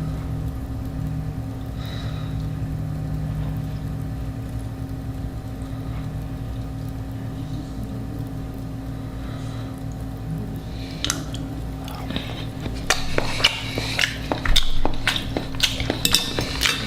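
A steady low hum, then about two-thirds of the way in, a quick run of sharp clinks and clicks of cutlery against a plate that grows busier toward the end.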